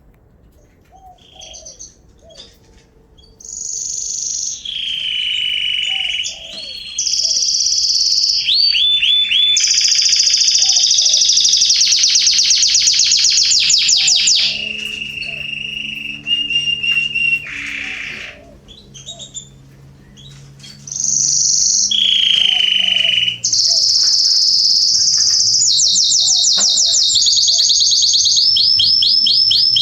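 Domestic canary singing a loud, long song of fast trills and held whistled notes. It starts a few seconds in, breaks off for a few seconds past the middle, then goes on again.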